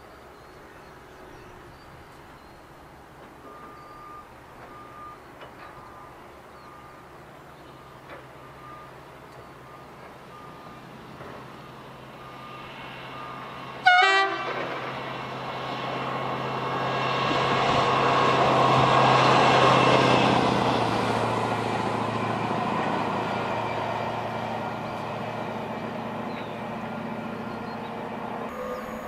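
A yellow diesel track maintenance machine approaches with a low steady engine hum. About halfway through it gives a short, sharp horn toot, then passes close by: the rumble swells to a peak a few seconds later and slowly fades as it moves away.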